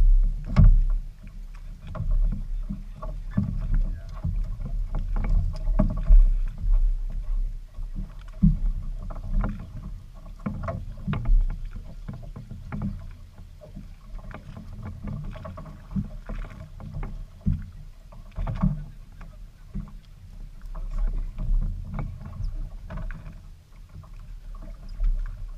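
Small fishing boat on the water: irregular low thuds and knocks, like water slapping the hull, over an uneven low rumble.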